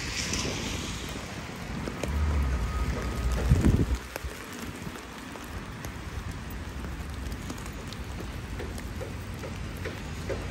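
Sleet, a mix of rain and wet snow, falling in a steady patter. About two seconds in, a low rumble lasts a couple of seconds and is the loudest sound.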